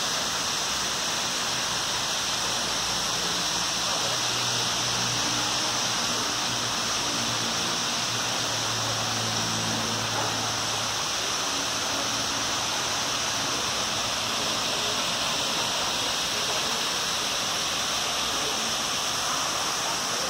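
Steady rush of running water from a small garden waterfall and stream.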